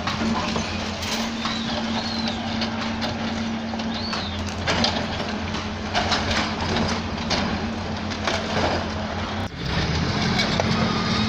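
A hydraulic excavator's diesel engine runs steadily as it tears down sheet-metal market stalls, with repeated clanks and crashes of metal sheeting and debris.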